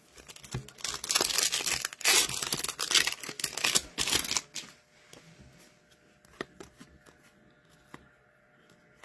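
Foil hockey-card pack wrappers being torn open and crinkled, a noisy ripping for about four and a half seconds that then stops, leaving a few faint clicks.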